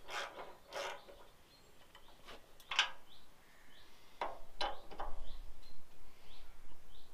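Scattered metal clinks and knocks of a Land Rover leaf spring and its bolt being handled and lined up in the chassis hanger, the sharpest knock about three seconds in and a cluster near the five-second mark. Faint bird chirps in the background.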